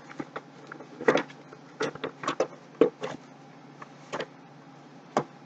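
Cardboard retail box of an Intel CPU being handled as the boxed heat sink slides out: a string of irregular short rustles and clicks.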